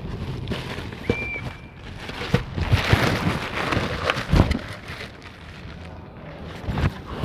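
Wind and handling noise on a phone microphone as the phone is moved about, with scattered knocks and rubbing, the loudest a low thump about four seconds in. A brief high tone sounds about a second in.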